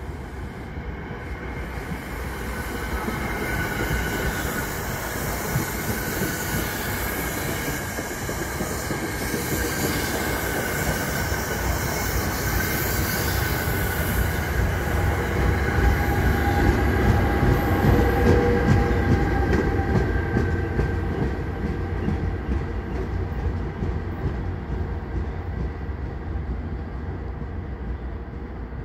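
NJ Transit Comet V commuter train passing slowly, its steel wheels rumbling on the rails with faint high squealing and clicking over rail joints. The sound builds to its loudest about two-thirds of the way through, then fades as the train moves away.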